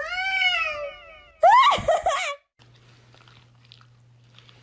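A domestic cat meowing twice. The first meow is long and drawn out, rising and then falling in pitch. The second, about a second and a half in, is shorter and harsher.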